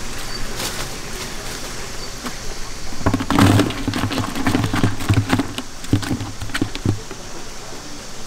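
Knife working on a cutting board while fish is being prepared for sashimi: a run of quick knocks and clicks, densest from about three to seven seconds in, over a steady hiss like running water.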